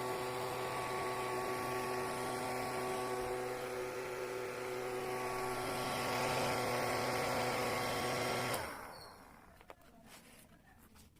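Small battery-powered DC motor and fan of a homemade cardboard vacuum cleaner running steadily, then switched off about eight and a half seconds in and winding down; a few faint clicks follow.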